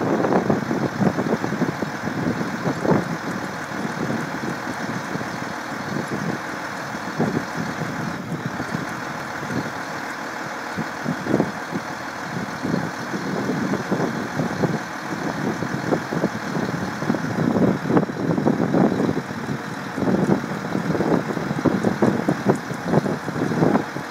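Heavy diesel truck engine idling steadily, with irregular low gusty rumbles over it throughout.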